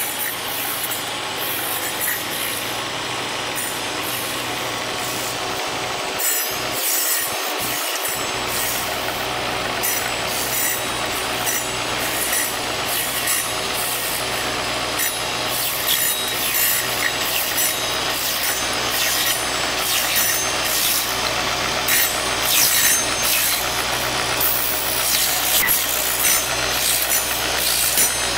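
Silk cocoon cutting machine running: a steady electric hum under the rasp of a small spinning circular blade slicing open silk cocoons, with light scattered ticks.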